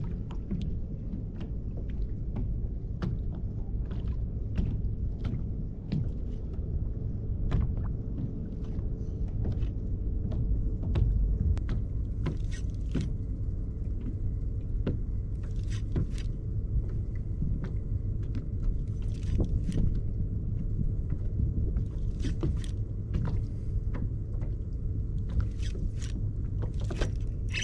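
Sounds from a kayak on the water: a steady low rumble with many short clicks and knocks scattered through, some coming in quick clusters.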